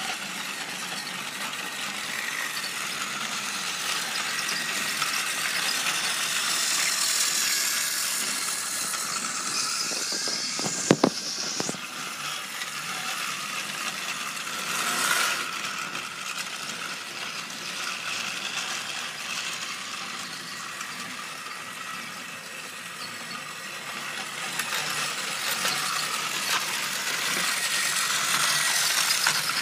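Battery-powered toy trains running on plastic track: a steady motor whir with rattling wheels and cars, swelling louder as a train passes close. A few sharp clacks come about eleven seconds in.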